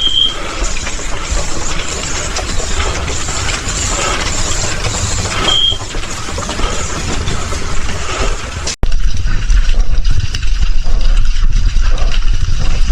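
A steady rushing noise with a short, high, single-pitched alarm beep, of the kind a smoke alarm gives, about five and a half seconds in. After a sudden cut near nine seconds, a deep rumble takes over.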